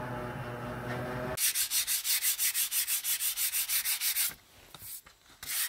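A gas torch burning steadily with an even hiss as it heats a steel branding stamp. After about a second and a half it gives way to a wooden cutting board being sanded by hand with a sanding sponge: quick back-and-forth scraping strokes, about five a second, which pause briefly near the end and then resume. The sanding knocks down grain raised by a damp wipe.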